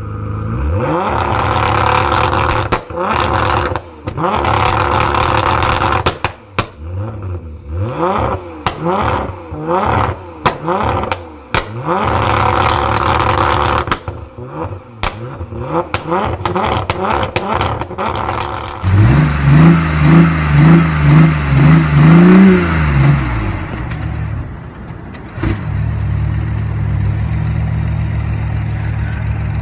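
Nissan GT-R's twin-turbo V6 running and being blipped over and over, its pitch rising and falling with each rev. About nineteen seconds in comes a quick run of about seven louder revs, and then it settles back to a steadier note.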